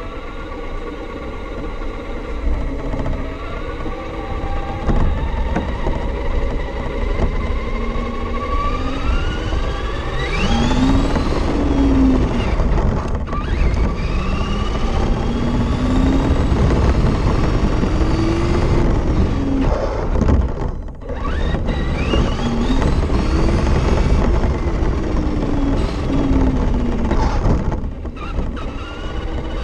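Electric motor and gear drivetrain of a Losi 22S-SCT RC short course truck whining, rising in pitch as it accelerates and dropping back several times, over a steady rumble of wind and tyres on pavement, heard from a camera mounted on the truck's body.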